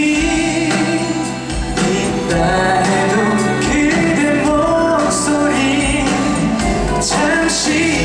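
A male singer singing a song live into a handheld microphone, with held notes over instrumental backing, amplified through a concert sound system.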